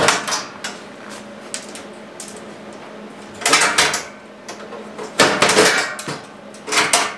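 Metal checker plate and steel frame parts clattering and scraping against each other as the plate is handled and fitted into place, in a few short bursts.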